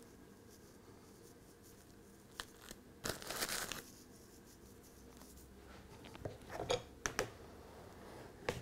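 Faint plastic-bag crinkling and rustling as pinches of model-tree leaf scatter are taken from the bag and pressed onto a model tree's foliage. The crinkles come in short spells: a brief one about two and a half seconds in, a longer one around three seconds, and a few more near the end.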